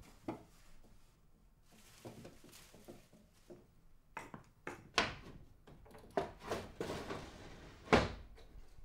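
Household handling sounds: a string of light wooden knocks and clicks, then one louder thunk near the end as a wooden lattice window is pushed open.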